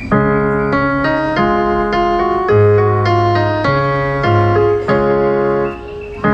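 Piano-style keyboard music: sustained chords that start suddenly and change every second or so.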